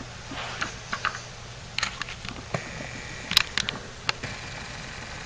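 Scattered light clicks and taps of small parts being handled, with a few sharper clicks about three and a half to four seconds in.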